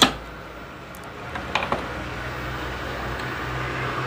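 A sharp click, then a steady low hum of a small fan or motor running, with a few faint ticks about a second and a half in.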